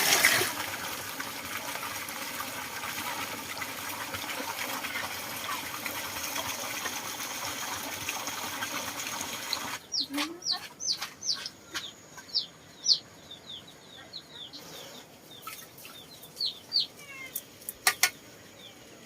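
A steady rush of water for about ten seconds, which stops abruptly. Then comes a quieter stretch of poultry calls: many short, high, falling peeps, typical of chicks.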